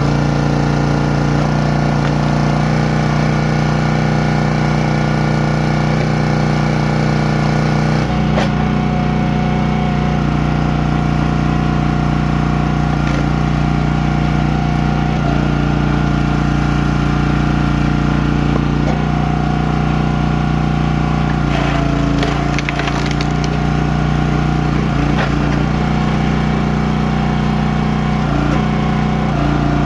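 Champion 27-ton log splitter's small gas engine running steadily, its note shifting every few seconds as the hydraulic ram loads up and releases. Wood cracks and splits under the wedge several times, most clearly about eight seconds in and again around two-thirds of the way through.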